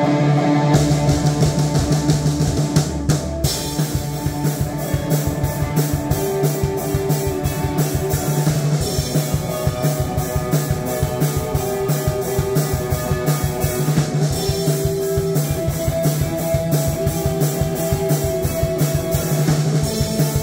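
Band jamming heavy metal: electric guitar over a drum kit keeping a fast, steady beat. The drums come in about a second in and get denser a few seconds later.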